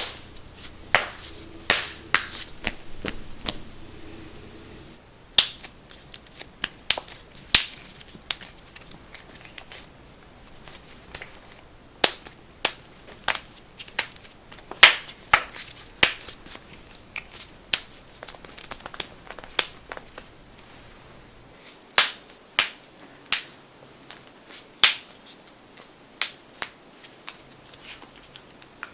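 Knuckles cracking: dozens of sharp pops at uneven intervals, some coming in quick runs of two or three.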